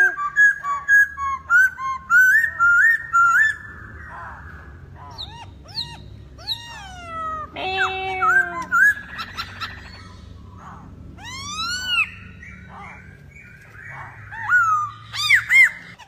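Black-throated laughingthrush (poksay hongkong) singing: loud, varied whistled phrases of notes that slide up and down in pitch, with short lulls about four and ten seconds in.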